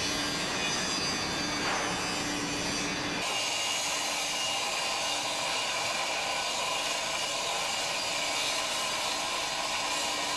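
Steady hissing noise of a shot-blasting machine running, blasting leftover moulding sand off an iron casting. The noise turns brighter and hissier about three seconds in.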